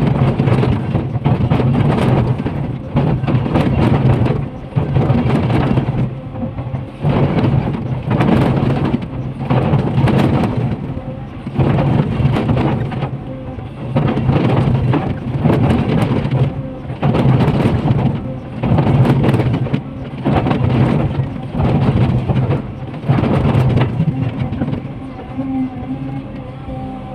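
Komatsu PC500LC excavator's diesel engine working under load while its toothed steel bucket digs into a rock face, with repeated crunching and grinding of rock every second or two as the bucket breaks and scrapes out the rock.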